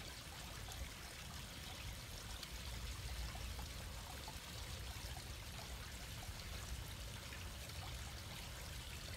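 Small garden-pond waterfall trickling steadily over stacked stones into the pond.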